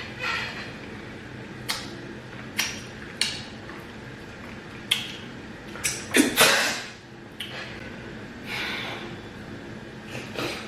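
Close-miked mukbang eating sounds: a scattered series of short wet smacks and clicks from chewing and handling the food and bowl. A louder half-second burst of noise comes about six seconds in.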